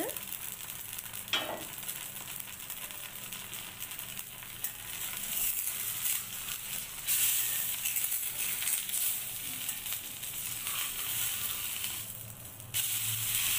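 Tomato dosa sizzling in oil on a hot iron dosa griddle, with a steel spatula working under it. The sizzle grows louder about seven seconds in, dips briefly, then flares up again as the dosa is turned over near the end.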